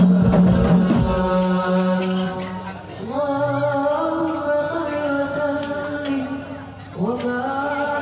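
Sholawat sung by a hadrah group: rebana frame drums beat under the singing until about a second in, then stop, and the lead voice carries on alone in three long drawn-out notes.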